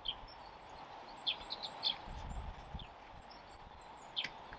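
Birds chirping in short, scattered calls over a steady faint outdoor background noise, with a brief low rumble about two seconds in.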